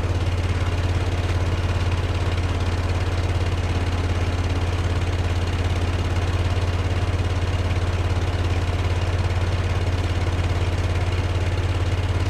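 Case 1816 skid steer engine running at a steady idle, an even low drone.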